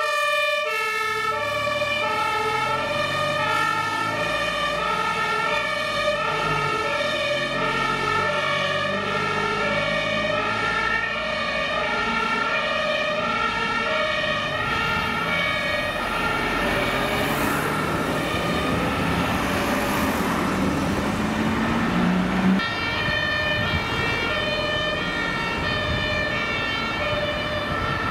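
German fire engine two-tone siren (Martinshorn) alternating steadily between a high and a low note as the fire trucks drive by. Midway the two-tone grows faint under truck engine and road noise, then comes back clear.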